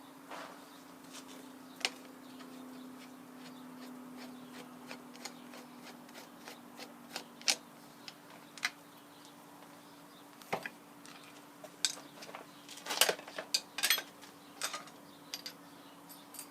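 Metal gearbox parts and hand tools clinking, tapping and scraping while the cross arm gearbox of a Rockford shaper planer is being taken apart. The clinks come irregularly, with a quick cluster of louder knocks about thirteen to fourteen seconds in, over a steady low hum.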